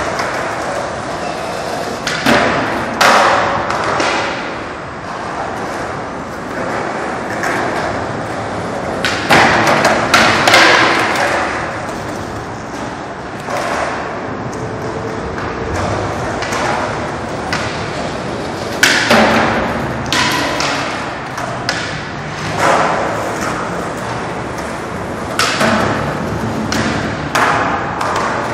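Skateboards on a concrete skatepark floor: irregular hard thuds and clacks every few seconds, each ringing on in a long echo under a concrete road overpass, over steady background noise.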